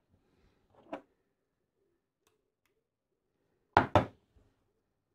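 Handling sounds from a small plastic RC pistol-grip transmitter: a faint click about a second in, then two sharp clicks in quick succession near four seconds, as it is picked up and switched on.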